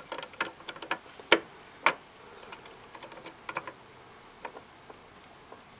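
Irregular light metal clicks and taps from a motherboard CPU socket's retention plate and lever being handled to close it over a seated processor, with two louder clicks between one and two seconds in.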